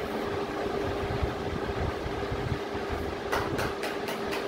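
Steady background rumble with a constant hum; about three seconds in, five quick scratches of a pencil stroking across drawing paper.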